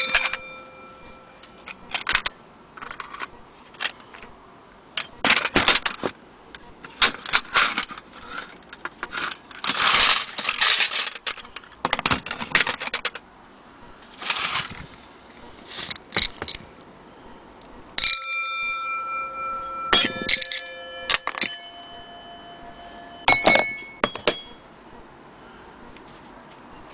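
Antique longcase clock movement being handled: loose metal parts rattling and clinking, then its bell struck a few times in the second half, each strike ringing on for a second or more.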